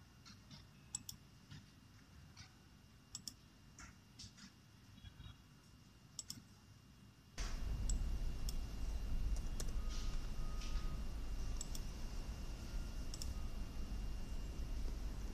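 Scattered sharp clicks from a computer being operated, mouse and key clicks while settings are entered. About halfway a steady low rumble comes in abruptly and stays.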